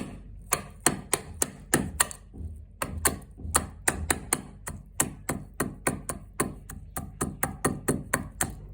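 Mishri (rock sugar) and soaked fennel seeds being pounded with a small hand crusher: a steady run of sharp knocks, about three or four a second.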